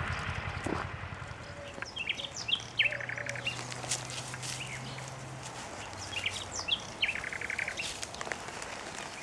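Songbirds chirping and singing in the open, with many short high chirps and twice a rapid buzzy trilled phrase. A faint low drone hums in the background for a few seconds in the middle.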